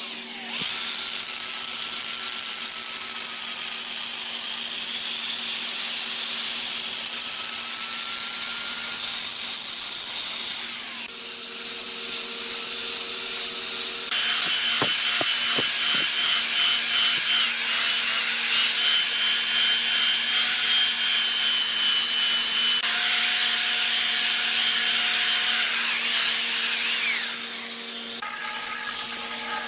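Handheld electric power tool running steadily and cutting or abrading hardwood: a continuous high, rasping hiss over a steady motor hum. The hum and hiss shift in pitch a couple of times partway through.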